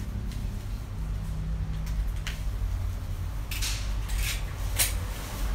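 Plastic wrapping on a soundbar being cut open and handled: a couple of light clicks, then three short crinkling rustles in the second half, over a steady low hum.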